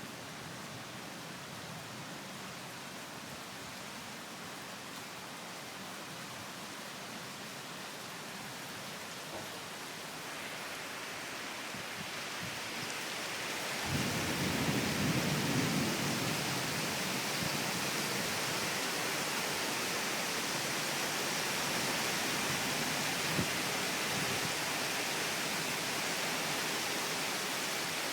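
Rain falling steadily and growing heavier. About 14 s in, a low rumble of thunder lasts a couple of seconds, and a louder rain hiss continues after it.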